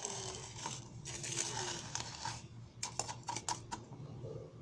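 A spoon stirring and scraping coffee grounds in a plastic jar: gritty scraping for about two seconds, then a run of quick clicks and taps against the jar.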